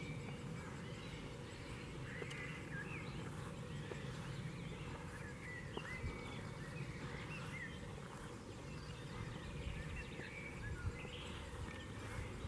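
Birds chirping and whistling in short, scattered calls throughout, over a steady low background rumble.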